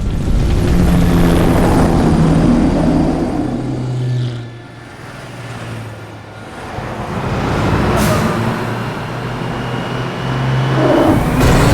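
Film sound mix of a police convoy's vehicles driving at speed: engines and road noise with sustained low tones. The sound drops away about four seconds in and builds back up, with one brief sharp sound about eight seconds in.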